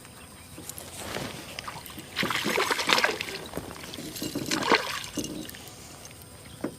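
Water splashing and sloshing at a small boat, with two louder spells of splashing, one about two seconds in lasting about a second and a shorter one near the five-second mark.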